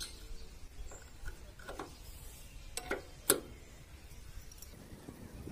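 Scattered metal clicks and light knocks as a power tiller's fan-belt tension pulley is handled and seated onto its mounting on the engine, with two sharper clicks about three seconds in.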